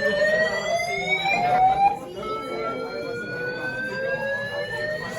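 Building fire alarm sounding a whooping evacuation tone: each sweep rises slowly in pitch for about four seconds, then drops back and climbs again. One sweep ends and the next begins about two seconds in.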